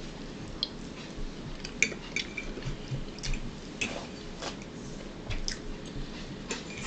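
Chewing and mouth sounds of someone eating, heard as scattered short clicks at irregular intervals.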